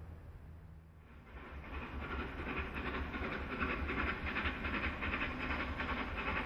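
Steam locomotive 3237, a NSW C32 class 4-6-0, working as it hauls its train, its exhaust beating in a fast, even rhythm over a low rumble, louder from about a second in.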